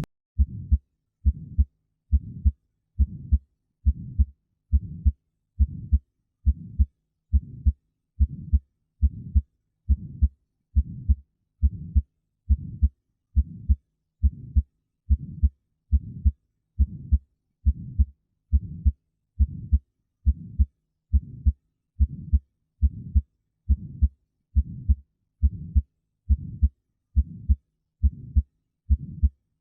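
Heart sounds heard through a stethoscope: a steady, regular heartbeat a little over once a second, low-pitched and dull.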